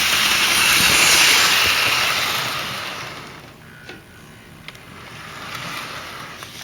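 Hornby Tornado 00-gauge model steam locomotive running around the track, its motor and wheels making a steady whirring hiss that fades away about three seconds in, leaving a quieter hiss with a couple of faint clicks.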